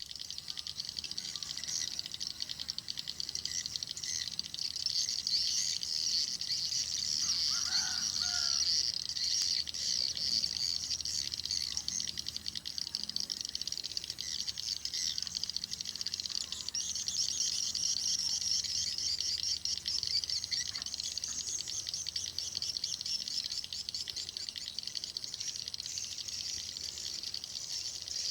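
Swiftlets twittering: a dense, continuous mass of rapid high chirps from many birds at once, with a brief lower call about eight seconds in.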